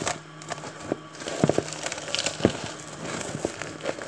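Plastic covering crinkling as it is taken off a plastic container, with several sharp knocks of the container against the countertop.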